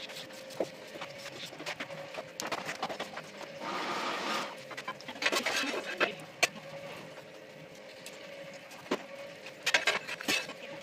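Electric rotisserie motor turning a whole pig on a spit, giving a steady hum, with scattered clicks and crackles and a short rushing noise about four seconds in.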